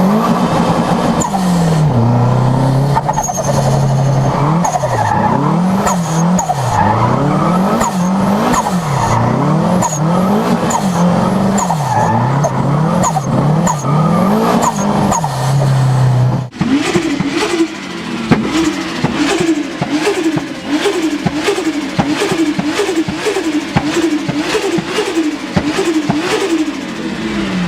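Turbocharged car engines revved hard over and over, the engine note climbing and dropping about once a second, with short high chirps as the throttle lifts. About two thirds of the way in it cuts to another turbo car revving faster, about twice a second, with a rapid stuttering flutter between revs.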